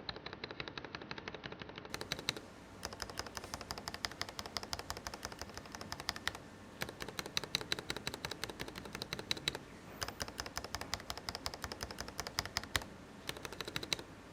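Stabilized keys on a CM64 mechanical keyboard pressed rapidly and repeatedly in a sound test, comparing the kit's clip-on stabilizers with Durock V2 stabilizers; the recording changes to a clearer one about two seconds in, with brief pauses between runs of keystrokes.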